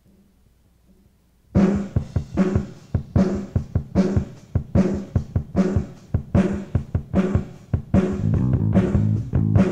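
Hard rock song intro on a 1980s demo recording: after a second and a half of near silence a drum kit starts a steady beat of kick and snare hits, and a bass guitar comes in under it near the end.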